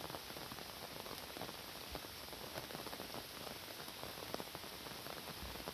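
Steady rain falling, with many individual drops striking close by as short sharp ticks.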